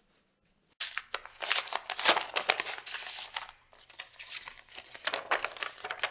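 Paper envelope and letter rustling and crinkling as the letter is drawn out of its envelope and unfolded, in two spells of crackling: the first begins suddenly about a second in, the second after a short lull past the middle.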